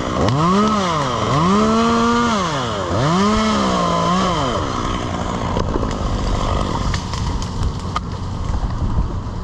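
Two-stroke chainsaw revved up and down in three bursts; the engine sound stops about four and a half seconds in. After that there is wind noise with scattered small clicks.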